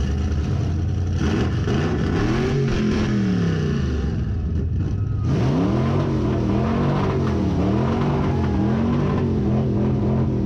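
A 1970s Ford crew-cab pickup's engine revved hard while parked. One long rev rises and falls about a second in, then from about halfway comes a string of about five quick revs roughly a second apart.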